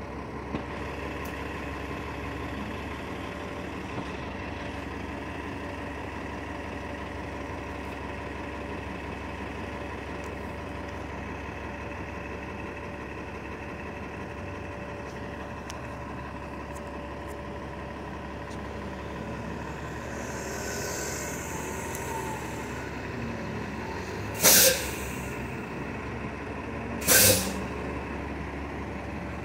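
City bus idling at a stop, a steady engine hum with faint steady whining tones. Near the end, a softer air hiss is followed by two short, loud air-brake hisses about three seconds apart, the air brakes releasing as the bus gets ready to move off.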